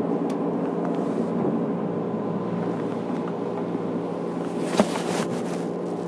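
JR Kyushu 103 series electric train standing at an underground platform, its equipment giving a steady hum. A sharp knock comes about five seconds in, followed by brief hissing.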